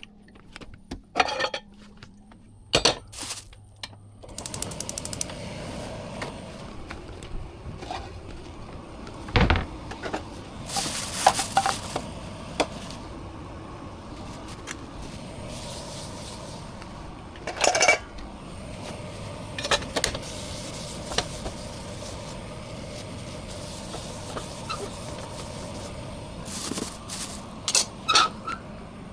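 Kitchen clatter during cooking: utensils, dishes and pans knocking and clinking, with a steady background hiss that sets in about four seconds in.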